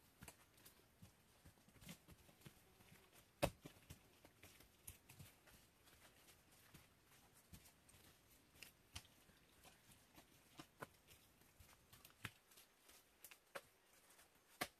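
Faint, irregular taps, rustles and knocks of manual work: handfuls of wet mud being packed into the gaps of a log wall, and bare feet moving on leaf litter. One sharper knock comes about three and a half seconds in, and another near the end.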